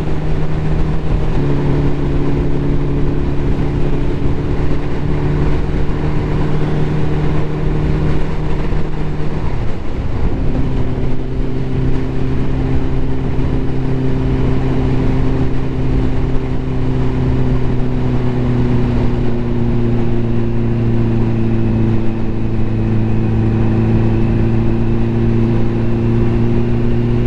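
Ducati motorcycle engine running at a steady cruise under a steady noisy rush. Its note drops with a short break about ten seconds in, as at a gear change, then eases slightly lower.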